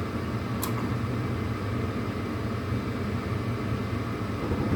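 Carrier Weathermaker gas furnace's inducer motor running steadily during ignition, with one sharp click about half a second in. Right at the end a deeper low rumble swells as the burners light, late because the gas line was not purged.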